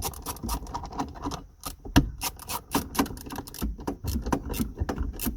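Ratchet clicking in a quick, even run of short ticks, about four or five a second, as a 10 mm bolt is done up tight.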